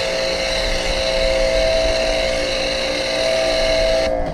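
Ryobi pressure washer running through a foam cannon, spraying foam onto a car. A steady motor whine over spray hiss, which cuts off suddenly near the end.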